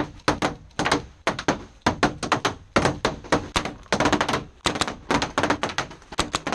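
Paintball markers firing in rapid, uneven bursts: sharp pops at about five a second, some in quick strings.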